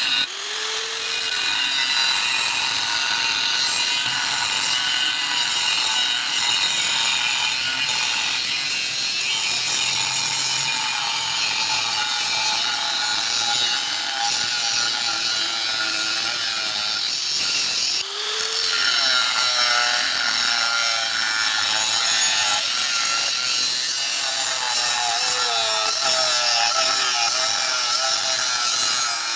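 Angle grinder fitted as a circular saw, running under load while cutting, with a steady high whine. Twice, just after the start and about 18 seconds in, the sound drops briefly and the motor note climbs back up.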